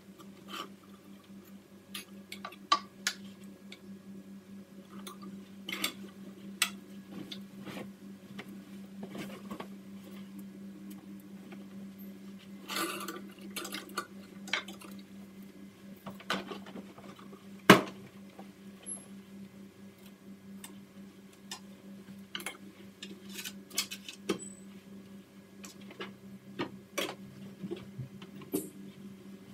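Clothes hangers clicking and sliding against a wall-mounted clothes rail as garments are taken down and hung back: scattered light clicks, with one sharper knock a little after halfway, over a steady low hum.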